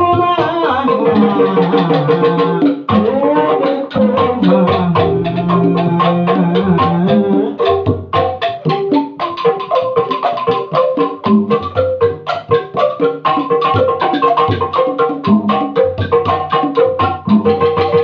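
Sundanese calung ensemble playing: bamboo calung tubes struck with mallets over a hand-played kendang drum. A man sings for about the first seven seconds, then the instruments carry on alone in a quick, even rhythm.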